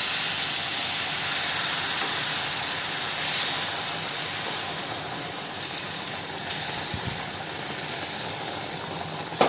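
Hot milk and water poured onto semolina roasted in ghee in a hot pan, hissing and sizzling loudly as the liquid hits the hot grains. The hiss slowly dies down.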